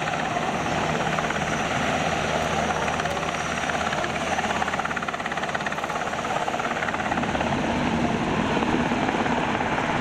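UH-60J rescue helicopter in a low hover: the steady, fast chop of its main rotor over the running of its twin turboshaft engines.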